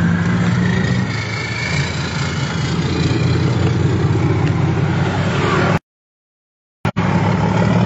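Heavy truck engines running with road-traffic noise, a steady low drone. The sound cuts out completely for about a second past the middle, then comes back.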